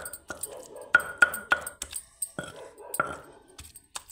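Hand stone of a sil-batta grinding stone knocking and rubbing on the flat stone slab as food is crushed: about nine sharp knocks in an uneven rhythm, with softer rubbing between them.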